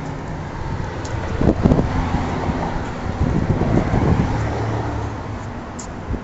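Street traffic: a motor vehicle's engine and tyre noise swelling as it passes and then easing off, over a low rumble with some wind on the microphone.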